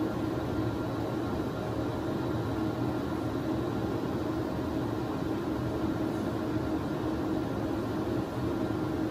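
Steady hum of CT scanner equipment: a constant low drone with a faint hiss over it.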